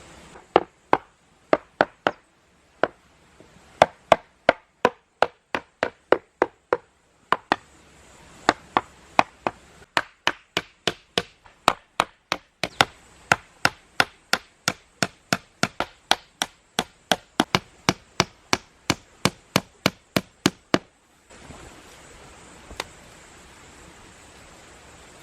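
Repeated sharp strikes on wood, about two a second, in three runs broken by short pauses, then stopping about 21 seconds in; one more lone strike follows shortly after.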